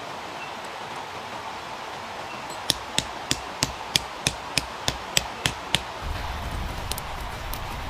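Hammer blows, about eleven sharp, evenly spaced strikes at roughly three a second, over a steady hiss; a low rumble comes in just after the strikes stop.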